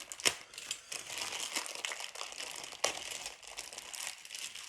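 Plastic packaging bags crinkling and rustling as figure parts are unwrapped by hand, with two sharp crackles, one about a third of a second in and one near three seconds in.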